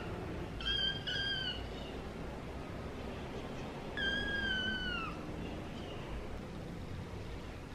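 Young kitten meowing: two short, high-pitched meows about a second in, then a longer meow that falls in pitch about four seconds in.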